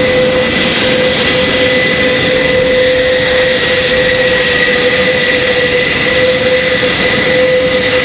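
Four TP400 turboprop engines of an Airbus A400M Atlas running steadily with their eight-bladed propellers turning: a loud, even drone with a steady whine over it.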